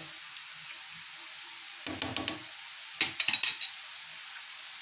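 Vegetables sizzling in oil in a kadhai, with a spatula scraping and clinking against the pan in two short spells, about two and three seconds in, as the sauces are stirred into the mix.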